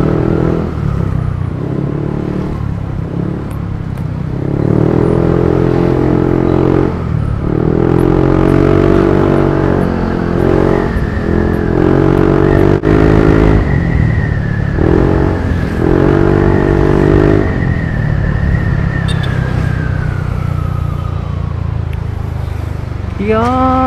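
Yamaha NMAX 155 scooter's single-cylinder engine running while riding in traffic, the throttle opening and easing in spells of a second or two over a steady low hum. A thin high whine holds and then slowly falls in the second half.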